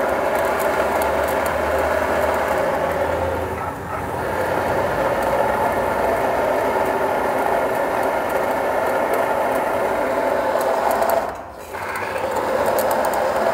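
Timken-type oil wear tester running: its electric motor spins the steel ring against the test block in engine oil, a steady machine whine with a grinding edge. This is the warm-up run that heats the oil before the test. The sound dips slightly about four seconds in and briefly drops away near the end before coming back.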